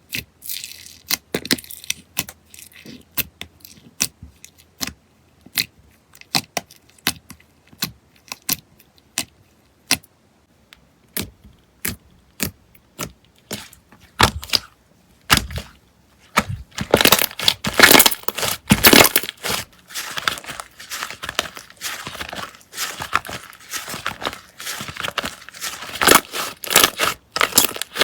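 Slime being worked by hand, making sharp pops and clicks, sparse at first, then a dense run of crackling about two-thirds of the way in.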